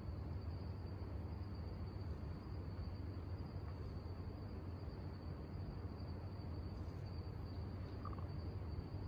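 Crickets trilling steadily and high-pitched, over a low steady hum.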